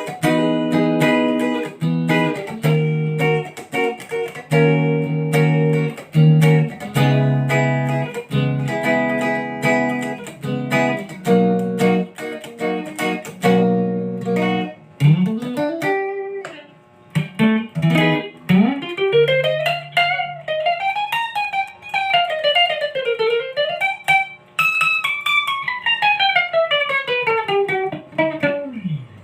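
Fernandes HSS electric guitar with a Floyd Rose tremolo: chords and short riffs picked for about fifteen seconds. Then notes are swept up and down in pitch with the tremolo bar, ending in a long dive down in pitch.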